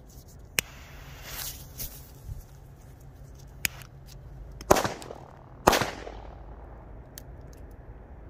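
Zhiru 'Spanish Cracker' firecrackers going off: a click and a short hiss, a few small pops, then two loud bangs about a second apart, each trailing off in an echo.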